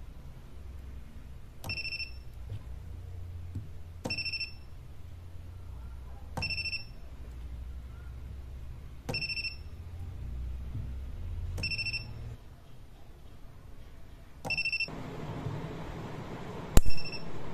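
Home-made capacitor spot welder firing repeatedly, about every two and a half seconds, welding nickel strip onto a battery terminal: each weld gives a sharp click with a short electronic beep. Near the end one weld gives a much louder sharp crack.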